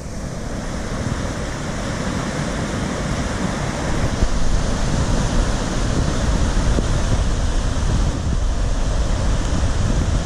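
Brown floodwater pouring over a spillway and churning in a whirlpool below: a steady, loud rushing of water that swells slightly over the first few seconds.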